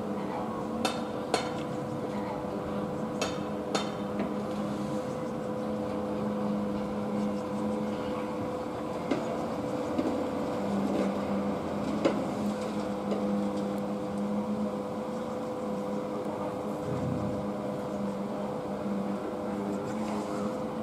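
A steady mechanical hum, holding several fixed tones, with a few sharp clicks in the first few seconds.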